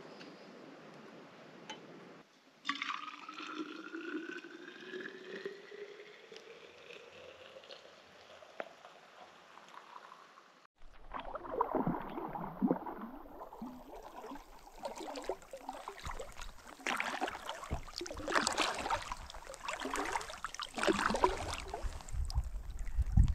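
Liquid poured into a cup, one tone rising steadily in pitch as the cup fills over about seven seconds. Then, from about eleven seconds in, a kayak paddle dips and splashes in lake water in irregular strokes.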